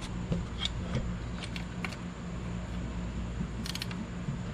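Scattered light metal clicks and taps of a small T20 Torx socket being fitted and turned on a screw of the throttle position sensor, working it loose. A low steady hum runs underneath.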